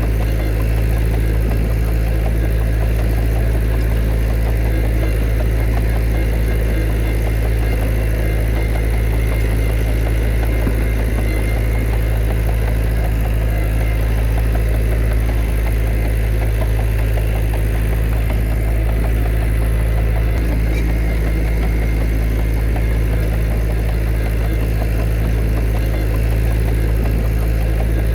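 Diesel engine of a heavy earthmoving machine (bulldozer or dump truck) running at a steady speed, a constant low drone.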